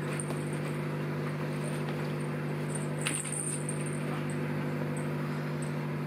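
Steady low electrical hum with several pitched tones, like a fan or appliance motor, with a few faint high chirps and a single soft tap about three seconds in.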